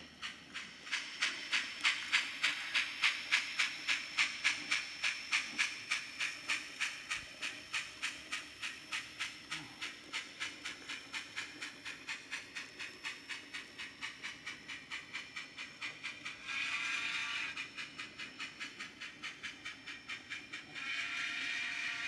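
Sound system of a Bachmann Spectrum 4-8-2 Mountain model steam locomotive playing an even exhaust chuff, about three chuffs a second, loudest in the first few seconds and then fading. A short steam-whistle blast sounds about sixteen seconds in and a longer one starts near the end.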